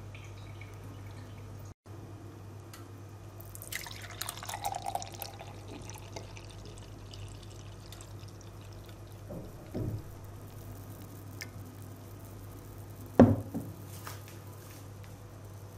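Compote being poured from a glass pitcher into a drinking glass, the liquid running for a couple of seconds. Later comes a soft thump, then a sharp knock about two seconds before the end, the loudest sound, as glass meets the table, all over a steady low hum.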